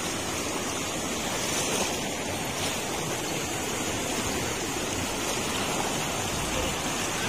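River water rushing, a continuous, even sound.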